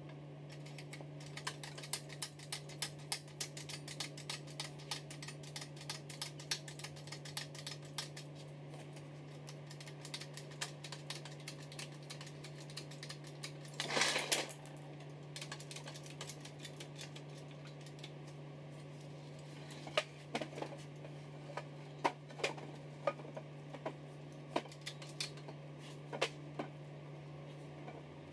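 Scattered clicks, clinks and knocks of a lifting chain, metal parts and wooden blocks as a bare diesel engine block is hoisted on an engine crane and shifted on its wooden supports, with one louder, longer clatter about halfway through. A steady low hum runs underneath.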